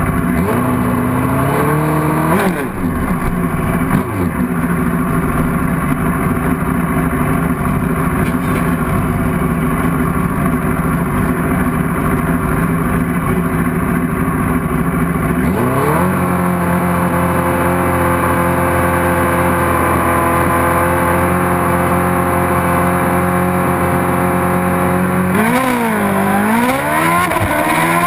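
Nitrous Suzuki Hayabusa drag bike's inline-four engine at the start line: a throttle blip, then idling, then held at a steady higher rev from about halfway through. Near the end it launches, the revs dipping as the clutch bites and then climbing.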